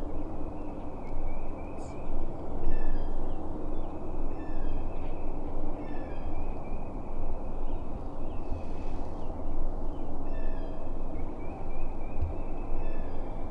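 Wild turkey gobbling in the timber, several gobbles about two seconds apart, each lasting about a second. A steady low rumble runs underneath.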